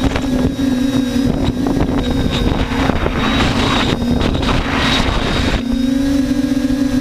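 TBS Discovery quadcopter's electric motors and propellers droning in flight, picked up by the onboard camera, with wind buffeting the microphone. About five and a half seconds in, the buffeting stops and the drone turns steadier and slightly higher in pitch.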